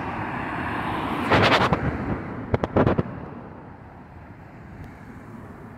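A car driving past on the street, its tyre and engine noise fading away, with two quick clusters of sharp knocks in the middle.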